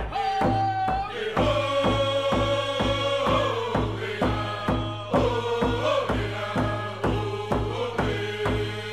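Chanted singing with long held notes that step up and down, over an even drum beat of a little over two strokes a second.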